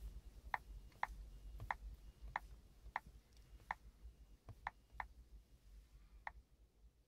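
Short clicks from a VW Golf infotainment touchscreen's touch feedback as its settings list is scrolled and tapped: about ten sharp ticks at uneven intervals.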